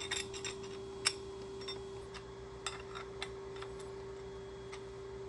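Light, irregular metallic clicks and taps of a wrench working the clamp bolts on a milling machine's overarm bracket, over a steady low hum.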